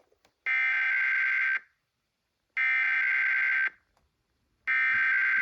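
Emergency Alert System SAME header: three bursts of buzzing digital data tones, each about a second long with about a second's pause between, the digital header that opens an automated Required Weekly Test alert.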